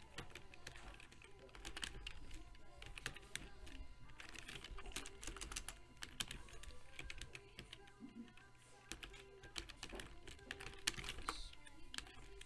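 Typing on a computer keyboard: a quick, irregular run of key clicks as a chat message is typed out.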